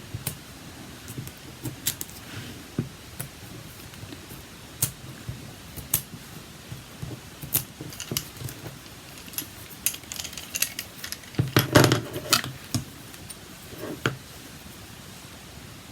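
Scattered small clicks and taps of metal tweezers and card pieces being handled on a craft desk, with a denser burst of handling about twelve seconds in.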